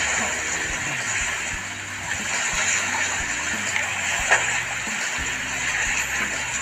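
Small waves washing against a pebbly shore, a steady hiss of water. There is one sharp click about four seconds in.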